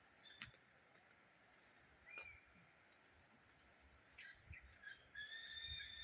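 Faint forest birdsong: a few short chirps, then a longer call of held whistled notes starting about five seconds in. Soft low thumps run beneath it in the second half.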